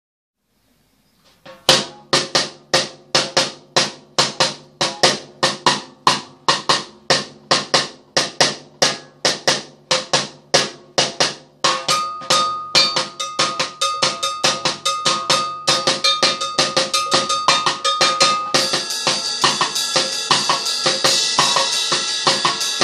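Drum kit played as a practice exercise: steady single strokes about two a second, switching about halfway to a faster, busier pattern, with a bright wash of cymbals filling in near the end.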